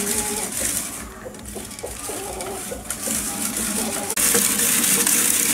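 Birds calling in short, low notes over a steady hiss that grows sharply louder about four seconds in.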